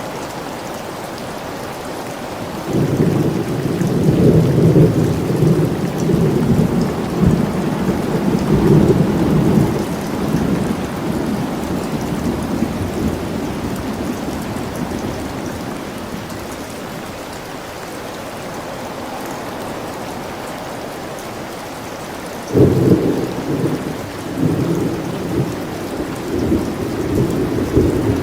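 Steady rain falling, with thunder rumbling twice: a long rolling peal starting about three seconds in and fading by about ten seconds, and a sharper clap about 22 seconds in that keeps rumbling on.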